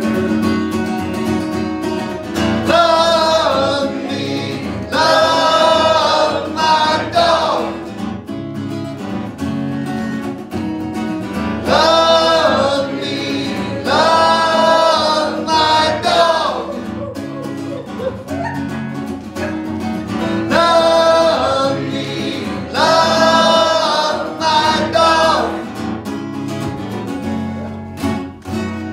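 Live acoustic song: acoustic guitars strummed in a steady rhythm under a man singing in long, held phrases. The music drops away near the end.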